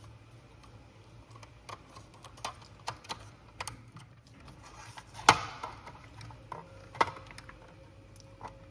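Irregular plastic clicks and knocks as the battery is worked out of a smoke detector, with a sharp snap about five seconds in and another about seven seconds in.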